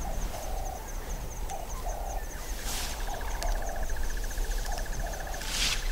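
Grassland ambience: a bird repeating a low two-note cooing call about every second and a half, over a fast high insect trill. A second, lower buzzing trill joins about halfway through, and there are two short rustles.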